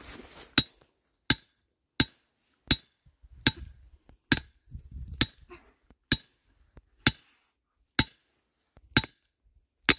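Hammer driving a steel trap stake down into hard clay ground: twelve evenly spaced metallic strikes, a little under one a second, each with a short ring.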